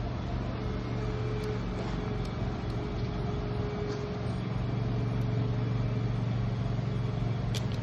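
A steady low mechanical hum, like a running engine, with a thin steady whine joining it about half a second in and a few faint clicks near the end.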